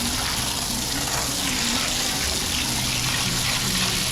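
Water running steadily with a continuous rush, over a low steady hum.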